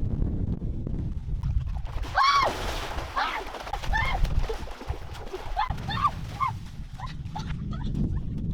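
An animal's short, high calls repeated several times, each rising and falling in pitch, over a low rumble.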